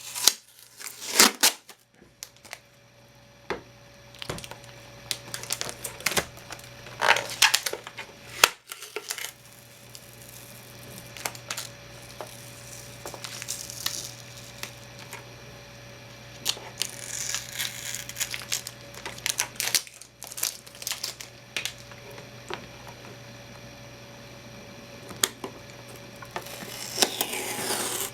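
Packaging tape being peeled and pulled off a 3D printer, in several long strips, with scattered clicks and knocks from handling the unit.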